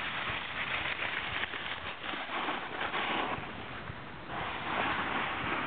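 Snowboard sliding and scraping over the snow during a run, a steady rushing noise that eases off about three and a half seconds in and grows louder again a second later.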